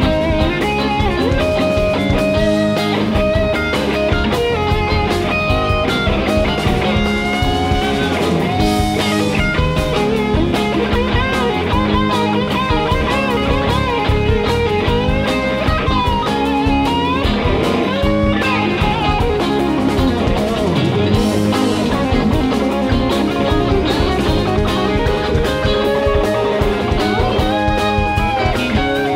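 Live band music with an electric guitar played lead over drums and bass, its notes bending and sliding in pitch.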